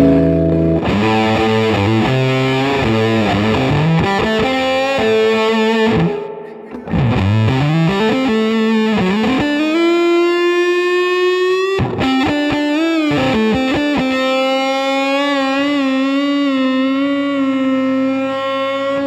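Electric guitar through a Tone Bender MKII-style fuzz pedal with 3903 silicon transistors and a Fender Deluxe Reverb amp, gain turned up high for a thick, distorted fuzz. A chord, then a run of bent notes, a note sliding up and held about ten seconds in, and a long sustained note with vibrato near the end.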